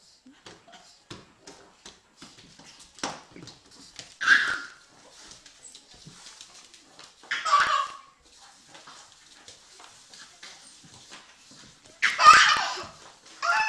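A small dog and a crawling baby at play: loud short outbursts of laughter and dog yapping come about 4, 7.5 and 12 seconds in, over faint scuffling and ticking on a hard floor.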